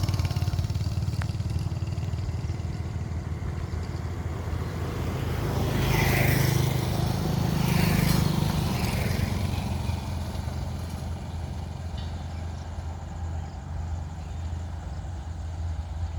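Express train hauled by a WAG-7 electric locomotive approaching, a steady low rumble that grows louder about six seconds in, with higher-pitched sounds for a few seconds before it settles back.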